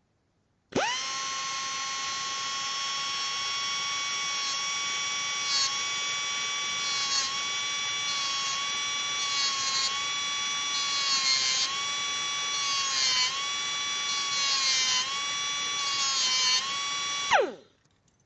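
Small electric drill spinning up, running at a steady high whine and dipping in pitch again and again as it is loaded in the cut, then switched off and winding down near the end.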